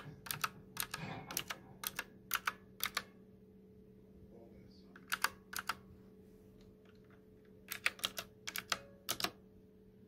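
Keys of a clicky blue-switch mechanical keyboard with round typewriter-style keycaps being pressed, giving sharp clicks. They come in three runs: a quick run in the first three seconds, a couple of keys about five seconds in, and another run near the end.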